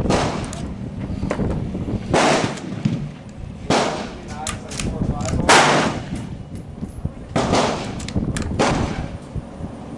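A run of .22 LR rifle shots, about six of them, one every one and a half to two seconds, each a sharp crack with a short ring-out, with a few lighter clicks between some of them.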